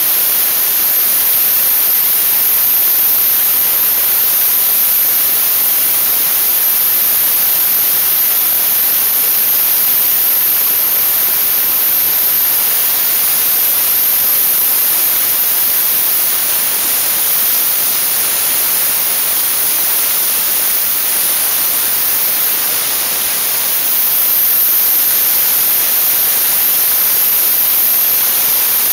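Dry-ice blasting nozzle hissing steadily and loudly as a compressed-air jet of dry ice is sprayed over engine parts.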